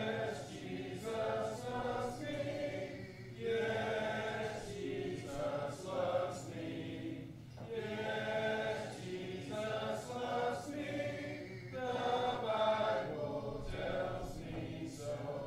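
Church congregation of men and women singing a hymn together without instruments, in phrases of about four seconds each.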